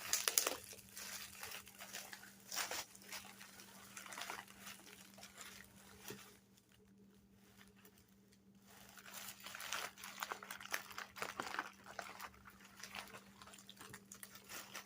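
Packing material crinkling and rustling as an item is unwrapped from a shipping box, in irregular spurts with a quiet pause about halfway through.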